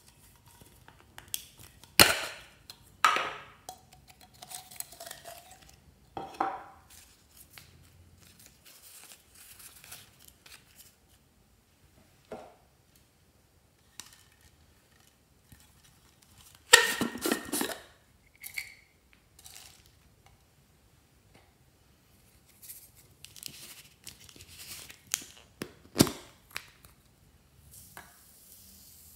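Hard plastic tumbler cups being handled over a glass dish: scattered sharp plastic clicks and clacks, with a brief rattle of small contents about two-thirds of the way through. Near the end, foam beads pour from a cup into the glass dish with a soft hiss.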